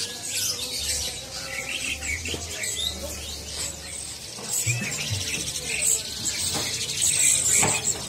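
Many caged songbirds chirping and singing over one another in a dense, busy chorus of short calls and trills, with a few sharp clicks among them.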